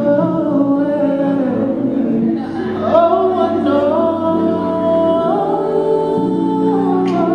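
A man singing his song into a microphone over backing music, holding long notes and sliding between them.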